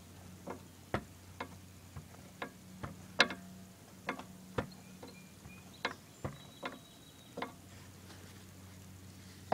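Pliers clicking and snapping against the metal garden-hose inlet fitting of a gas pressure washer's pump as it is gripped and turned to screw it in: a string of sharp, irregular clicks about one or two a second, the loudest about three seconds in.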